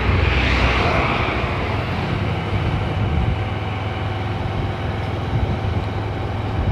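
Motorcycle engine running steadily while riding along at even speed, heard from on the bike, with a constant low hum under the road and air noise.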